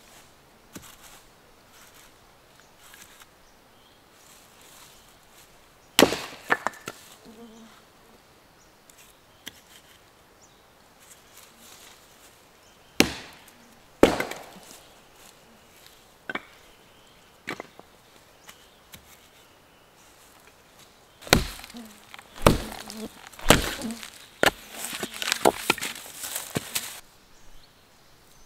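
Firewood being chopped: sharp wooden strikes, a few spaced out at first, then a quicker run of blows over the last seven seconds or so.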